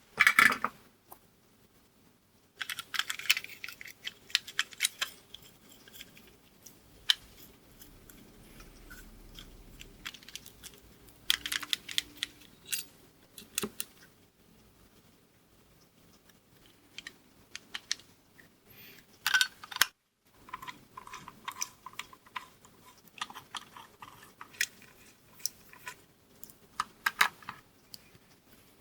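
Intermittent clicks and light clatter of a NUX Drive Core overdrive pedal being reassembled by hand, its parts and metal enclosure handled and fitted together.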